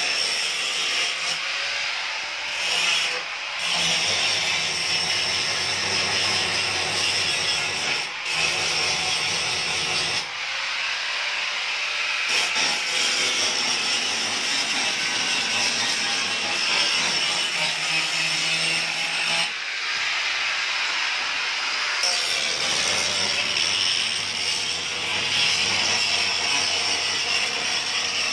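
A woodworking power tool runs continuously as a steady hiss, with a few short breaks. The longest breaks come about 10 and 20 seconds in.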